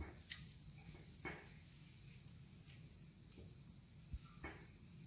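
Faint sizzle of pancake batter cooking on an electric hot plate, with three soft taps from a knife slicing banana over a plate.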